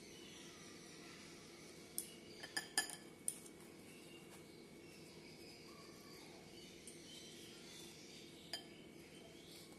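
Hands tearing a roti into a glass bowl of milk, with a few light clinks against the glass or between bangles: a quick cluster about two to three seconds in and one more near the end.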